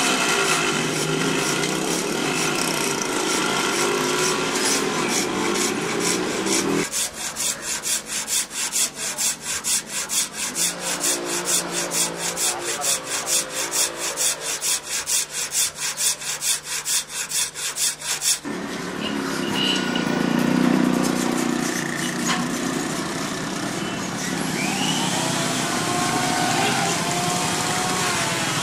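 Hand-sawing wood in steady back-and-forth strokes, about three a second, starting about a quarter of the way in and stopping about two-thirds through. Mixed street noise fills the rest.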